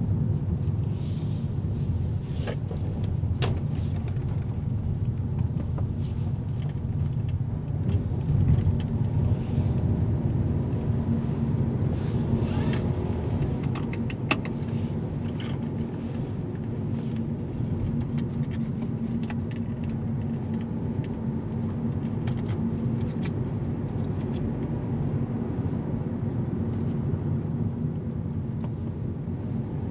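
Car cabin sound while driving: a steady engine and road rumble with a constant low hum, and scattered light clicks and rattles inside the cabin.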